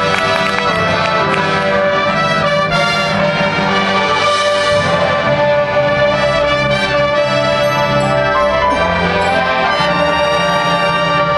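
High school marching band brass (trumpets, trombones and horns) playing loud, full sustained chords, with a bright swell in the upper range about four seconds in.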